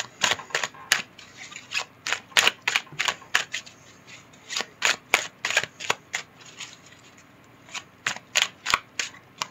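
A deck of oversized oracle cards being shuffled by hand: a run of sharp card snaps and slaps in uneven clusters. The clicks pause for about a second near the end, then start again.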